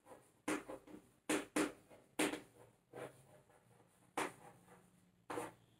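Chalk writing on a chalkboard: a string of short, irregularly spaced taps and scrapes as the letters are stroked on.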